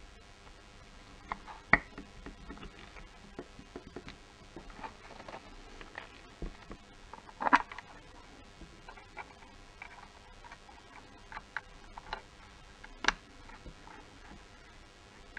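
Scattered small clicks and light knocks from hands handling a Mercedes W212 steering wheel and its plastic trim parts. Three of them stand out as sharper knocks: about two seconds in, about seven and a half seconds in, and about thirteen seconds in.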